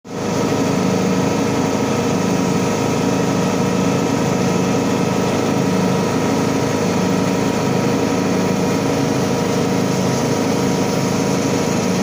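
A zero-turn riding mower's engine running steadily at an even speed.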